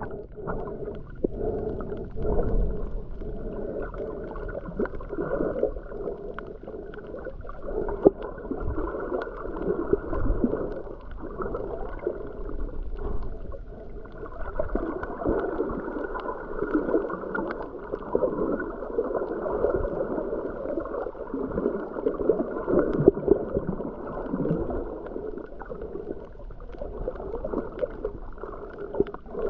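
Muffled underwater sound picked up through a waterproof camera housing while swimming over a reef: a dull, uneven sloshing rumble of water movement, with faint scattered clicks above it.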